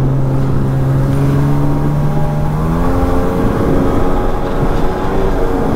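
The two-stroke twin engine of a 1999 Sea-Doo GTX Limited runs hard under way, with rushing water. Its pitch steps up sharply about three seconds in as the revs rise, then holds at the higher pitch.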